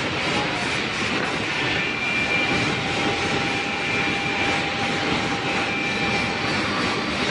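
Steady, loud machinery running, an even roar with faint high whines that come and go in the middle.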